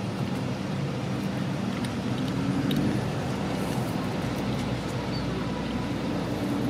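Steady low hum of a running motor vehicle engine, even throughout, with a few faint ticks over it.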